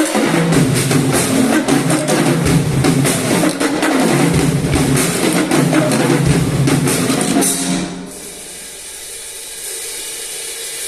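Multipercussion ensemble playing a fast, dense passage of pitched drums and cymbals. About 8 s in the pounding stops and a quieter passage of sustained ringing tones follows, growing again near the end.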